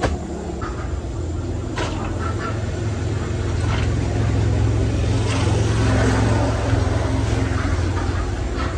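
A motor engine running steadily with a low hum that grows louder toward the middle and eases off near the end, with a few light clicks.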